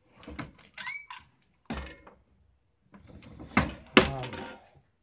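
Reloading press worked through a stroke with a core-sizing swage die, squeezing a lead bullet core and bleeding off the excess lead. It gives clunks from the handle and ram, a short squeak about a second in, and two sharp knocks about three and a half and four seconds in, which are the loudest.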